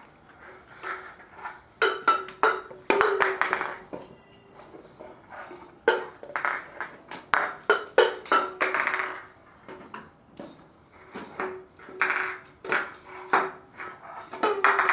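A Pringles can being knocked, pushed and scraped around a floor by a beagle puppy: irregular clatters and scrapes, the louder hits ringing briefly.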